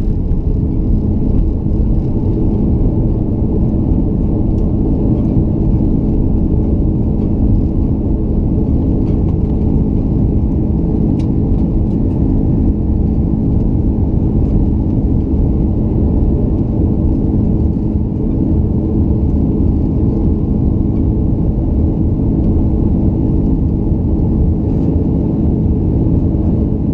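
Airbus A330-300 jet engines at takeoff power, heard inside the cabin from a window seat over the wing, through the end of the takeoff roll and into the climb. A loud, steady rumble with a steady hum of several tones.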